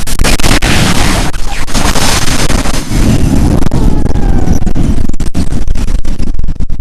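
Very strong wind blowing hard, gusting and buffeting the microphone with rough, crackly noise; the hiss eases a little near the end.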